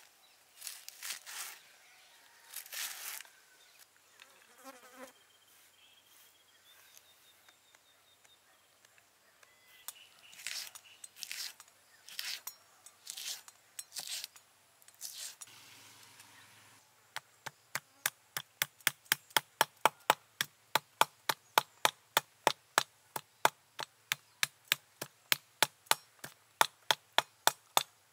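Large knife cutting leek and green chillies on a wooden chopping block: a scattering of crisp, uneven cuts at first, then a little past halfway a steady run of quick chopping strokes, about three a second.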